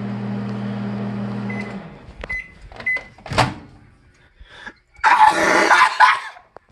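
Microwave oven running with a steady hum that stops just under two seconds in. Three short high beeps signal the end of the cooking cycle, followed by clicks and a sharp knock, then about a second of noisy rustling near the end.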